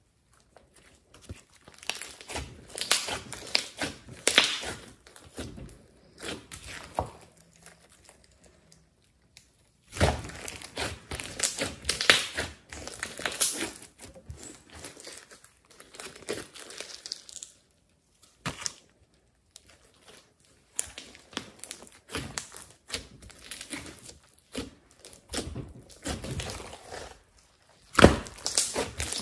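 Thick glossy slime mixed with clay being stretched, folded and squeezed by hand, giving sticky squelches and rapid runs of small crackling pops as trapped air bursts. The sound comes in bunches with short pauses between handfuls.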